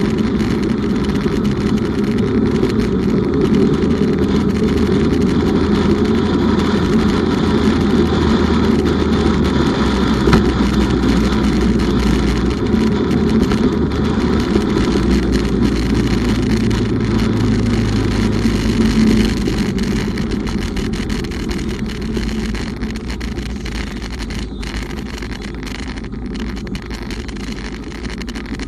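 Bumoto Regnum motorcycle being ridden: steady wind rush and engine and road noise, heaviest in the low range, growing gradually quieter over the last several seconds.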